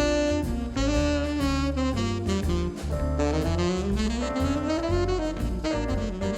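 Background jazz music: a saxophone plays a melody over bass and drums.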